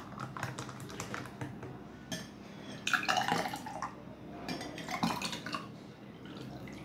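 Liquid being poured into a tall drinking glass over ice cubes, splashing and trickling in two pours about 3 and 5 seconds in, with light clinks of glass.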